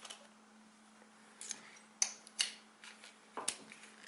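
Short, sharp metallic clicks and taps, about five of them at irregular spacing, from steel weld pins being handled and knocked against the stud welding gun's magnetic pin holder. A faint steady hum runs underneath.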